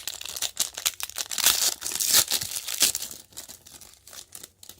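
Foil wrapper of a trading-card pack being torn open and crinkled, a dense crackling that thins out after about three seconds.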